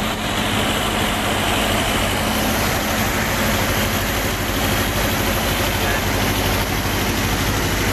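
Powercity marine diesel generator running steadily, a continuous engine drone with a low hum.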